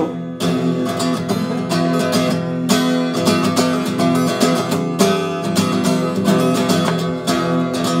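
Acoustic guitar strummed in a steady rhythm, an instrumental passage with no singing.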